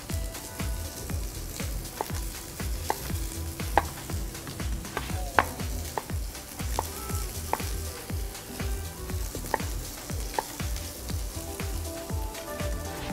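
Kitchen knife cutting tomatoes on a wooden cutting board, a run of irregular knocks, over the steady sizzle of a red pepper and spring onion sofrito frying in oil in a pan.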